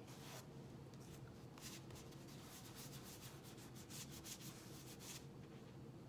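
Faint rubbing and light rustling of hands smoothing a thin plastic transfer sheet on a terry towel, in short irregular strokes.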